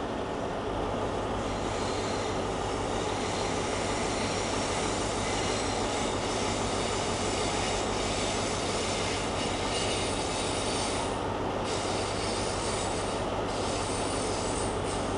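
Train rolling slowly over curved track and points with a steady rumble, its wheels setting up a high-pitched squeal about a second and a half in that cuts out briefly twice near the end: flange squeal on the tight curves.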